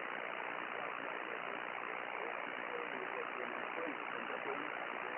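Single-sideband receiver hiss from a Yaesu HF transceiver's speaker, cut off above about 3 kHz. A weak distant station's voice is barely audible under the noise, its signal fading in and out.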